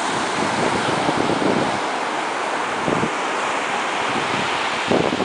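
Ocean surf washing onto the beach in a steady roar, with wind gusting across the microphone.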